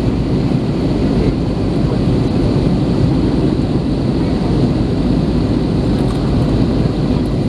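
Steady low rumble of engine and airflow noise inside the cabin of an Airbus A321 in flight, with its CFM56-5B engines running.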